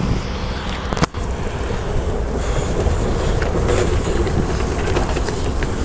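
Low diesel rumble of a MAZ-105 articulated city bus pulling up to a stop, with street noise and wind on the microphone. The sound briefly cuts out about a second in.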